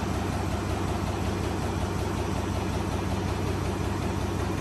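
Engine of the lifting machine hoisting the tank's engine, idling steadily with an even low hum.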